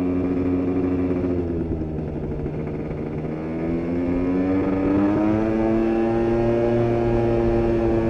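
Aprilia SR scooter's two-stroke engine, bored out with a Malossi 172 cc kit, on the move. The revs fall away over the first few seconds, then climb again from about halfway and hold steady at a higher pitch.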